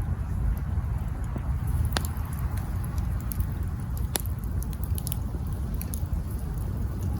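Campfire burning, the wood crackling: two sharp pops about two and four seconds in, with scattered small crackles, over a steady low rumble.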